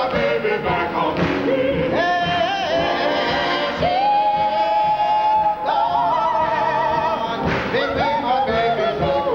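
Music with a singer, the sung notes wavering with vibrato; one long note is held for about two seconds from around four seconds in.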